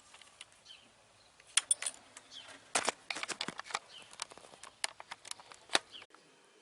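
An irregular run of small sharp clicks and knocks from the front-brake micro-switch and lever of a BMW R1200 GS being worked by hand. The switch is faulty: it keeps the brake light on and the servo brake from working. Faint birdsong sits behind the clicks.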